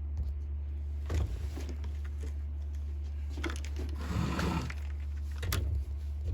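Small clicks and scraping as a stop switch is pushed into a chainsaw's handle housing, with a few sharp knocks about one, three and a half and five and a half seconds in and a short stretch of rustling between them, over a steady low hum.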